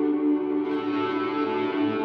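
Electric guitar played through delay, reverb and chorus effects, sustained ambient chords washing and ringing on. About two-thirds of a second in a new chord comes in over the ringing tail.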